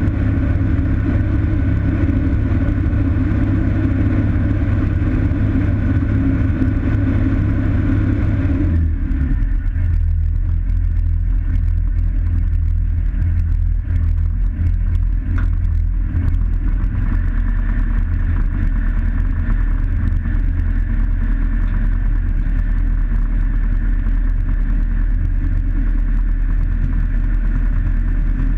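Light experimental aircraft's piston engine and propeller running at low power, heard from inside the canopied cockpit. About nine seconds in the engine note drops abruptly to a lower, duller sound, and it picks up slightly again later on.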